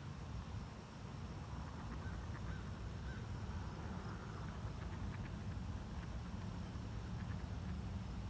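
A few faint short calls from mallard ducks on the water, over a steady low rumble.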